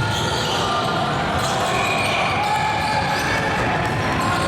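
Basketball game noise in a gym: a ball bouncing on the court amid steady background voices.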